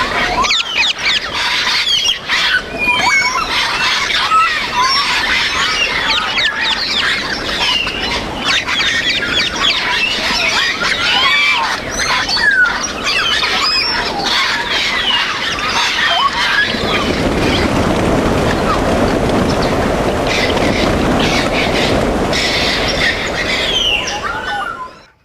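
Parrots whistling, squealing and squawking over one another in a dense, continuous chatter. About two-thirds of the way in, a lower, rougher chattering joins, and the whole cuts off abruptly just before the end.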